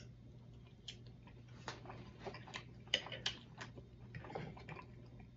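Faint eating sounds close to the microphone: a man chewing a forkful of food, with scattered soft mouth clicks and smacks at irregular intervals, over a faint low hum.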